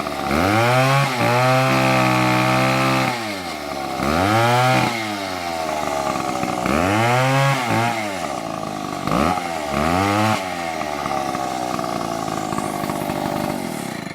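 Stihl MS720 two-stroke chainsaw engine revved hard several times, each time quickly rising in pitch and then dropping back, before a long slow fall in pitch as the engine slows down near the end.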